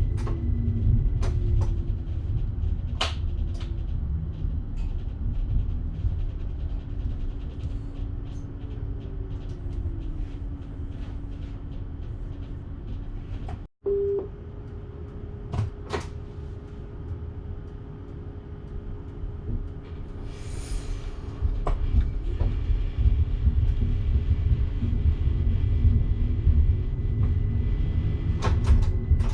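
Electric train running on the Bergen Line, heard from the driver's cab: a steady low rumble with a motor hum, broken by scattered sharp clicks. The sound cuts out completely for an instant about fourteen seconds in, and a short hiss comes around twenty seconds.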